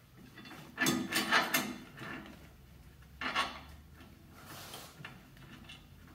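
Metal parts and hardware clattering and scraping while being fitted to the car's front suspension: a loud clatter about a second in, another just past three seconds, and a few softer knocks between.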